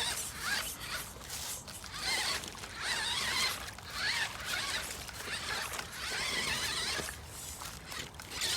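FTX Ravine RC crawler's electric motor and drivetrain whining in a string of short throttle bursts, the pitch wavering up and down as it crawls over rough ground.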